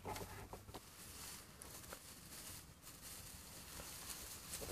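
Dry straw rustling softly as hands gather and work it into a bundle, with a few light crackles.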